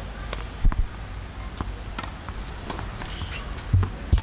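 Footsteps and small scuffs on a hard tennis court, with three dull low thumps close to the courtside microphone, about two-thirds of a second in and twice near the end.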